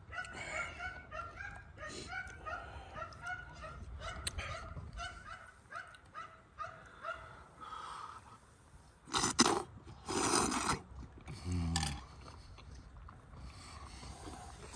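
An animal calls in a quick run of short, pitched calls, about three a second, for the first eight seconds or so. Then a man eating soup makes a few loud slurping and breathing sounds, followed by a low, falling 'mmm'.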